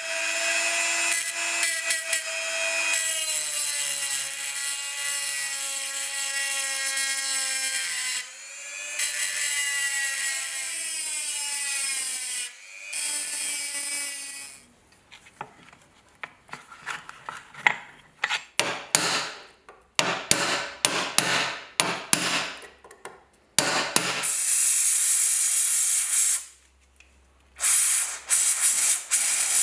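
Handheld rotary tool with a sanding drum grinding rust off a steel bayonet scabbard. For about the first half its motor runs with a steady high whine whose pitch sags and recovers as the drum is pressed on. After that it runs in short stop-start bursts, with another steady stretch near the end.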